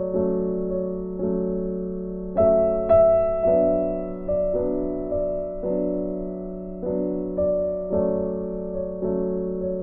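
Slow, gentle background piano music, with notes or chords struck about once a second, each fading away before the next.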